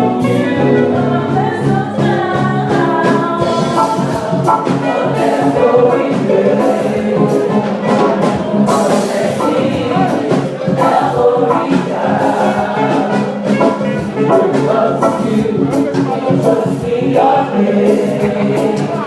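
Choir singing an anthem with instrumental accompaniment and frequent percussive strokes, continuous and loud.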